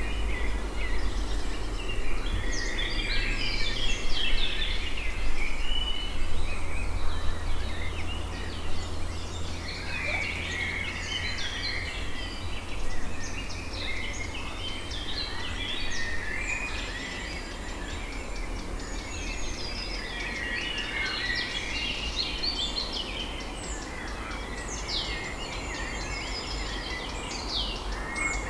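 Many birds chirping and twittering, short calls overlapping throughout, over a steady low rumble.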